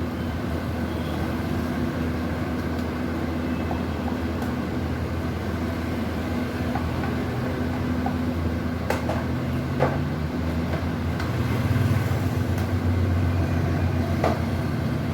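Steady low hum of a running motor, swelling slightly near the end, with a few sharp metallic clicks of hand tools at work.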